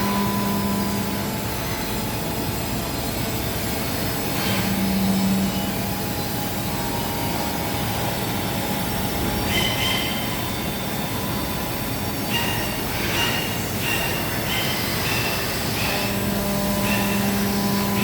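Hermle C40 U five-axis vertical machining center running: a steady mechanical noise with a low hum. Short high-pitched squealing tones come in about halfway through and again several times in the last few seconds.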